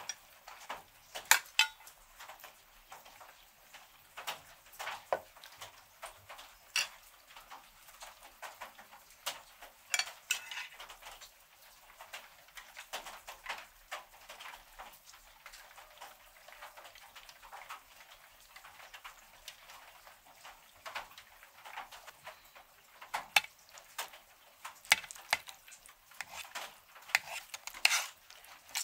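Close-up eating sounds: scattered sharp clicks of chewing and smacking, with the clink and scrape of a fork and spoon on a metal serving platter of meat near the end.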